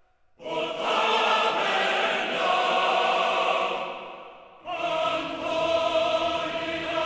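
Choral music: a choir holding long, sustained chords. One phrase enters about half a second in and fades out about four and a half seconds in, and a new phrase starts right after.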